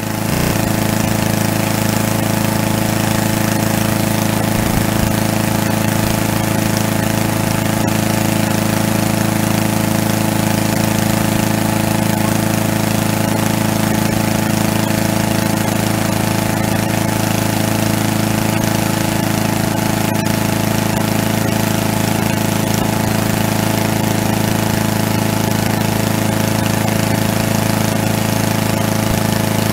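Gasoline push lawn mower's small engine running steadily at a constant speed, standing still on the grass and not cutting.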